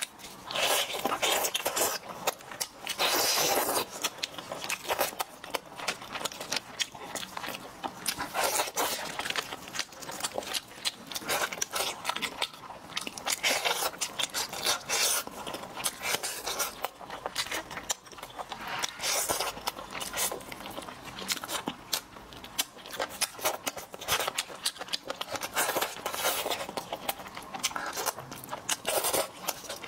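Close-miked eating sounds of steamed chicken: irregular wet chewing and sucking of the meat, mixed with tearing of the chicken by hands in plastic gloves.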